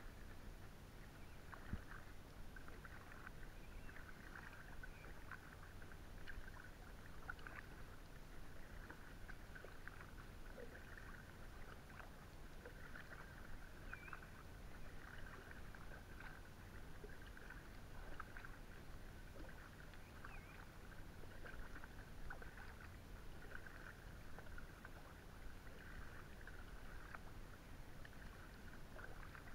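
Faint kayak paddle strokes: small irregular splashes and drips of water as the paddle blades dip and lift, over a low steady hum.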